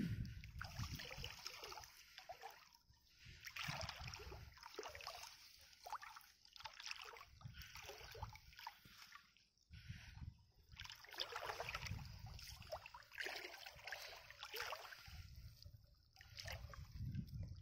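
Shallow water splashing and sloshing in irregular bursts as a nylon cast net is hauled in by hand, with occasional low rumbling.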